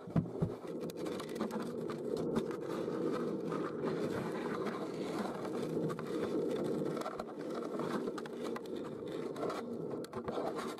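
Muffled rumbling and scraping picked up through a sealed homemade camera housing as it moves inside a brick chimney flue, with a few knocks at the start.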